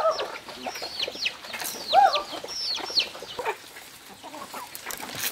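A flock of chickens feeding, with hens clucking and many short, high, falling peeps throughout. Two louder rising-and-falling calls come right at the start and about two seconds in.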